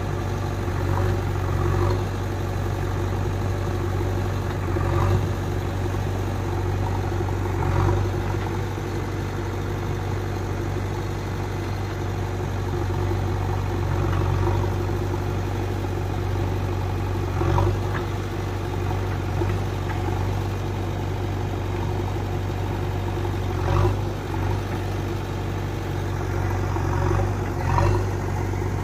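Heavy diesel engine idling steadily, with a few brief louder moments over the half minute.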